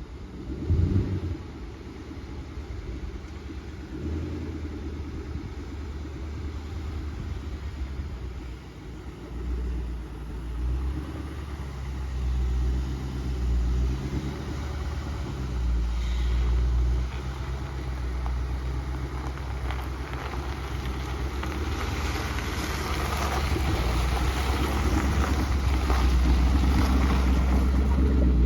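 Car engine running while driving, with a sharp knock about a second in; the engine and road noise grow steadily louder toward the end.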